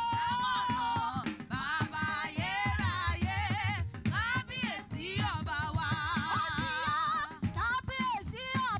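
A woman singing a gospel praise song into a microphone, her notes wavering and ornamented, over band accompaniment with a steady drum beat.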